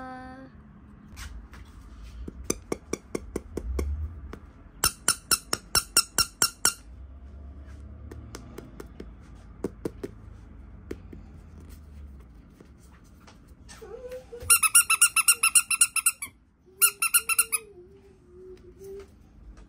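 Runs of rapid clicking, then a toy squeaking in two rapid, high-pitched bursts, the first about fourteen seconds in and lasting over a second, the second shorter.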